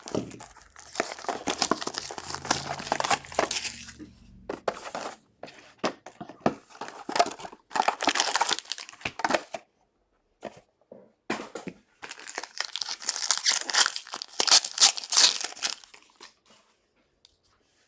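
Plastic trading-card pack wrappers being torn open and crinkled, in several bouts of rustling with a short pause a little past halfway.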